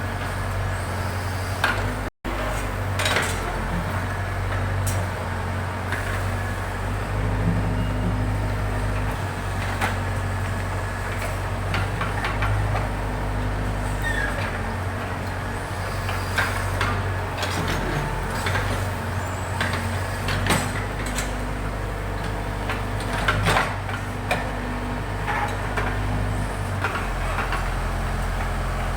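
Backhoe loader's diesel engine running steadily, with scattered clanks and knocks from the machine's working parts.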